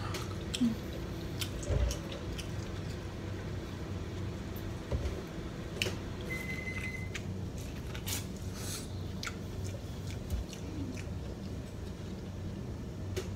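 A person eating at close range: chewing, wet mouth clicks and lip smacks as she bites into shrimp and corn on the cob, over a steady low hum.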